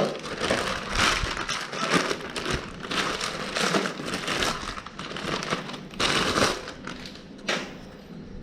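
Plastic packaging crinkling in irregular rustles as a new air filter element is unwrapped and handled.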